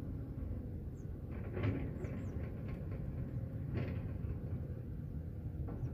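Steady low wind rumble on the microphone, with a few brief rasping scrapes about a second and a half in and again near four seconds in.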